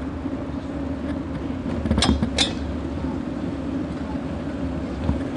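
Bicycle rolling over brick paving: a steady low rumble of tyres and frame, with two sharp rattling clatters about two seconds in and a lighter click near the end.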